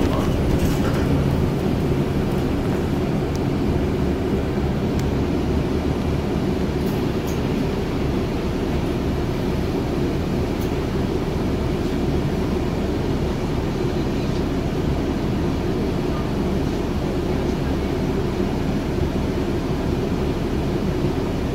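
Scania Citywide LF city bus heard from inside the passenger cabin: a steady low engine and running drone, with a few faint rattling ticks.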